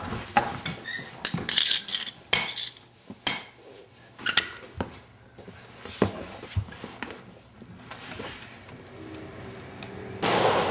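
Scattered knocks and clattering of hard objects as two people scuffle and one falls to a tiled floor, thick in the first few seconds and sparser after. A steady rushing noise comes in near the end.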